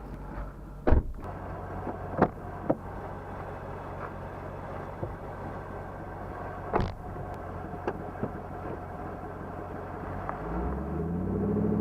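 A car drives past near the end, its sound swelling and then starting to fade. Before that there is a low steady engine hum with a few sharp knocks.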